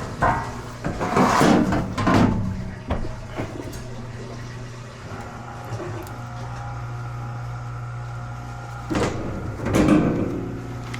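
Kenmore-branded Whirlpool front-load washer's drain pump running with a steady low hum, draining water now that its clogged filter has been cleared. From about five seconds in, a higher steady tone joins. Clattering handling noises come near the start and again near the end.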